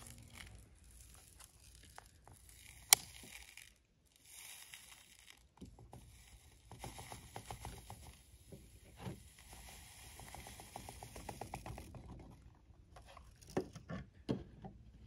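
Granulated black powder poured from a plastic cup into a PVC firework mortar tube: a faint, steady hiss of trickling grains that pauses briefly about four seconds in and stops at about twelve seconds. A single sharp tick comes about three seconds in, and a few soft knocks near the end.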